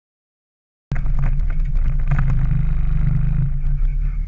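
A pickup truck's engine running steadily as a low rumble, heard from the truck's open load bed; it starts about a second in, after a moment of silence.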